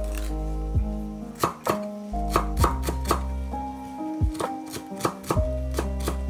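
Chef's knife chopping fresh cilantro on a wooden cutting board: a run of sharp, irregular knife strikes on the board that come faster after about two seconds. Soft background music plays under it.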